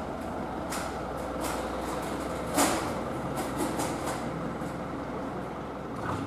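Steady low rumble of station ambience with scattered light clicks and one sharper knock about two and a half seconds in.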